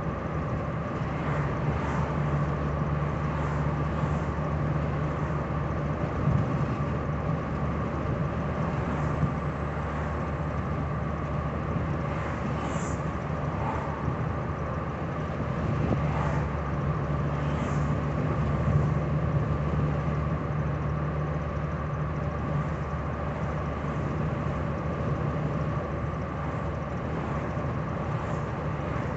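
Interior noise of a 1985 Cadillac Cimarron cruising at steady speed: a steady engine hum with tyre and wind noise.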